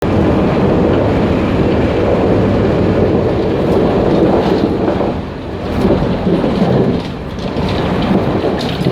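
Loud rumble and rattle in the gangway between cars of a Taiwan Railways Puyuma Express (TEMU2000 tilting electric multiple unit) running along the track, with occasional short knocks; the loudness dips briefly twice.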